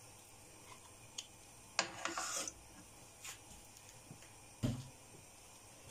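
Lumps of solid rendered poultry fat being put into a stone-coated frying pan: a few light clicks, a short scrape about two seconds in, and a low knock of utensil on pan near the end.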